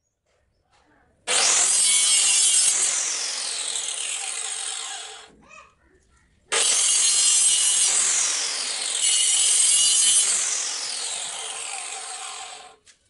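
Handheld electric circular saw cutting through a wooden batten in two passes: a first cut starting about a second in and lasting about four seconds, then after a short pause a second, longer cut of about six seconds. Within each cut the pitch sinks as the blade goes through the wood.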